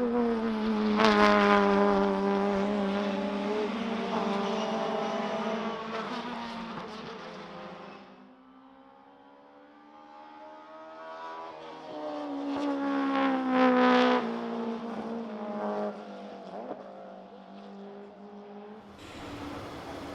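Historic saloon racing cars passing on track at speed, engines at high revs. Two loud pass-bys, the first about a second in and the second about thirteen seconds in, each fading away as the car drives off.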